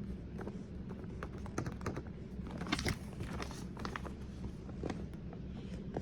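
Irregular light clicks and crinkles of small objects being handled, busiest about halfway through, over a steady low hum.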